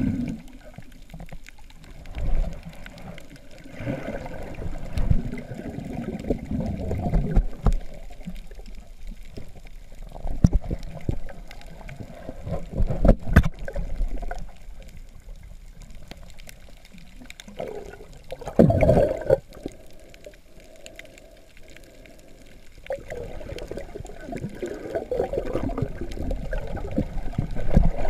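Muffled underwater sloshing and gurgling around a GoPro held under water, coming in irregular swells with a few sharp clicks, heard through the camera's waterproof housing.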